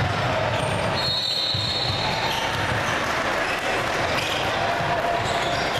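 Basketball game in a gym: a ball bouncing on the hardwood floor over the steady echoing noise of the hall, with a high sneaker squeak about a second in.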